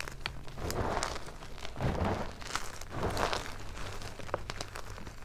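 Hands squeezing and crushing hard blocks of Xtraining gym chalk into chunks and powder: crunching and crackling in several bursts, the loudest about two seconds in.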